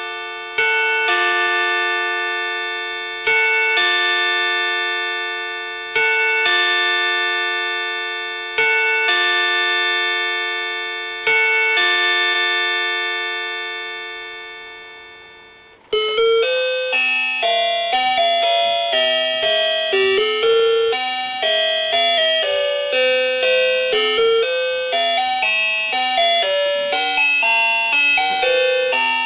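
Seiko Disney character wall clock chiming: five strikes about two and a half seconds apart, each ringing and fading, the last left to die away. About sixteen seconds in it breaks into a quick, bright melody of a Disney song.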